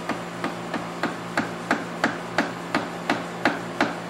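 Rubber mallet lightly tapping a steel wrench, even strikes about three a second, tightening the 36 mm column nut of a mini-mill without knocking it out of tram. A steady low hum runs underneath.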